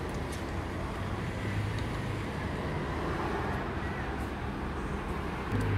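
Steady low motor-vehicle engine hum with traffic noise, and a few faint ticks. The low hum grows stronger near the end.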